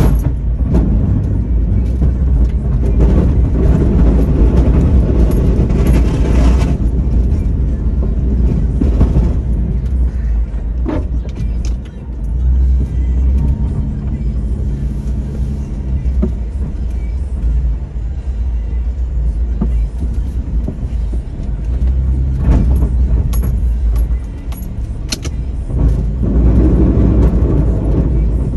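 A 2002 Jeep Liberty's engine working under load while pushing snow with a front plow: a steady low rumble that swells and eases in stretches, with a few short sharp clicks or knocks.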